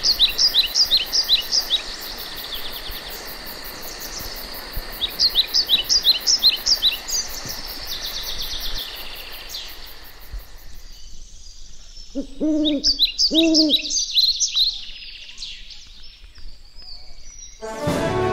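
Songbirds singing repeated phrases of quick, high whistled notes over a steady insect trill that stops about two-thirds of the way through, with two low hooting calls a second apart near the end, owl-like.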